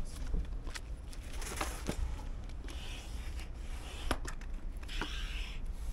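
Hand pump inflating an inflatable stand-up paddleboard: a short whoosh of air with each stroke, roughly once a second, with sharp clicks from the pump between strokes.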